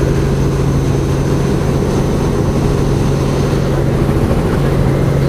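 Helicopter engine and rotor heard from inside the cabin: a loud, steady drone with a constant low hum and a faint high whine.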